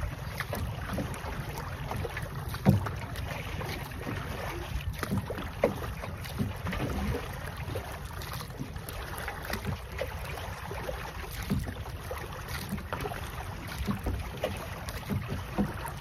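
Single wooden paddle dipping and pulling through sea water beside a small outrigger boat, in irregular splashing strokes, over a steady low rumble of wind on the microphone. A few sharp knocks stand out, the loudest about three seconds in.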